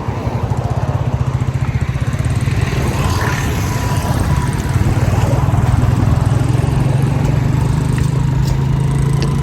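A small engine running steadily, with a fast, even pulse and an unchanging pitch.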